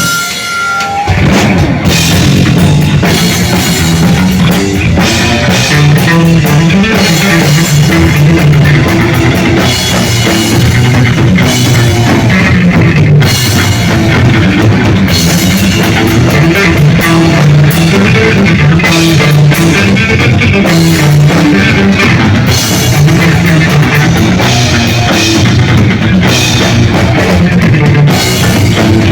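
Heavy-metal drum kit played live at full volume in a dense, continuous solo, with a brief dip in the first second.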